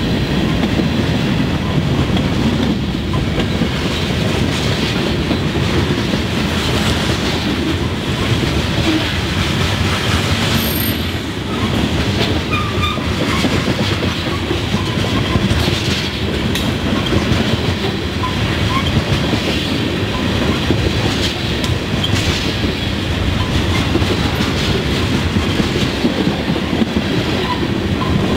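Freight train cars (covered hoppers and tank cars) rolling past: a loud, steady rumble of steel wheels on the rails, with clickety-clack over the rail joints.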